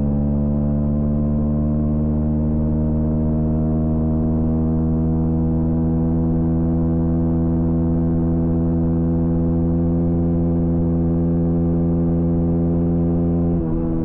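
Honda CB125R's single-cylinder 125 cc four-stroke engine pulling at high revs under throttle. Its pitch climbs slowly over the first few seconds and then holds steady, with a brief break near the end.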